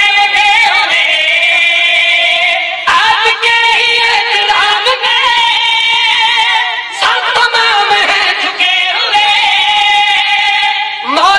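Devotional singing of a manqabat: a voice holding long, wavering melismatic notes, with short breaks about three and seven seconds in.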